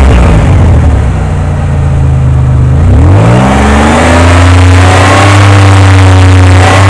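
1998 Oldsmobile 88's 3.8-litre V6, which has a cylinder 3 misfire, running loud. Its revs fall back near the start, sit low for about three seconds, then rise sharply and are held at a higher engine speed.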